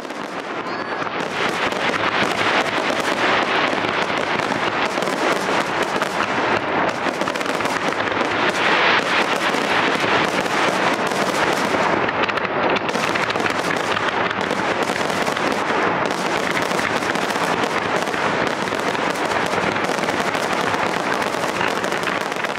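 Fireworks display in full barrage: a dense, unbroken stream of bangs and crackling. It eases off only at the very end as the show finishes.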